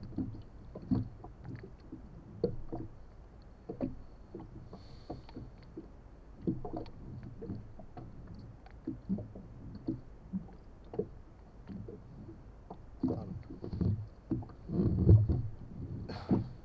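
Water lapping and knocking against the hull of a small inflatable boat drifting on a calm sea: irregular low slaps and thuds, bunching louder near the end.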